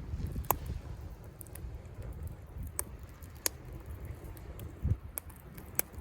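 Wood campfire crackling, with a handful of sharp pops scattered through it over a steady low rumble.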